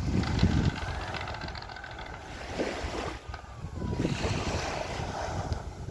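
Wind buffeting the microphone over the wash of waves at the shore, an uneven low rumble with a hiss above it.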